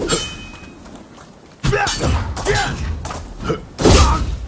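Spear-fight combat sound effects: a run of sharp hits and crashing impacts, the loudest near the end, with short vocal cries between them.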